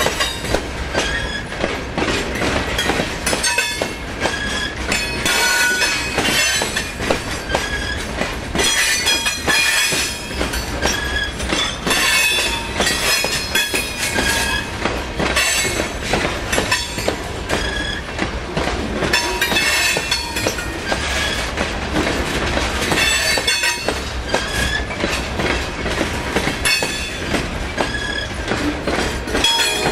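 Freight train cars rolling past, wheels clattering over the rails, with short high-pitched wheel squeals coming and going throughout.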